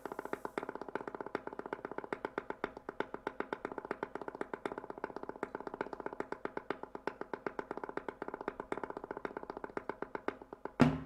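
Electronic dance track played from a DJ console: a fast, evenly repeated pitched note pattern, then bass and drums come in loudly near the end.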